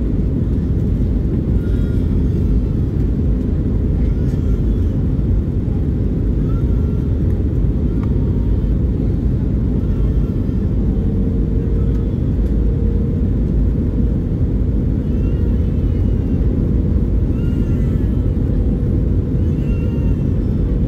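Steady cabin rumble of an Airbus A319 in flight, engine and airflow noise heard from a window seat as the airliner descends on approach.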